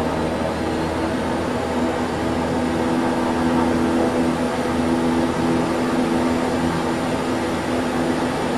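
Twin Pratt & Whitney PT6A-65AR turboprops running, heard inside the cockpit as a steady drone with several steady tones. The propeller speed comes back up after the auto-feather test is released, and the sound gets a little louder about three seconds in.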